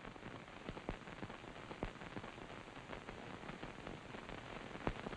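Faint soundtrack hiss with scattered soft clicks and ticks, a few of them slightly louder.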